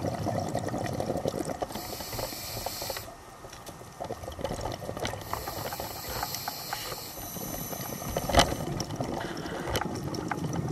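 Scuba regulator breathing underwater: two hissing inhalations, each about a second and a half long, alternate with bubbly gurgling of exhaled air. A single sharp knock comes about eight seconds in.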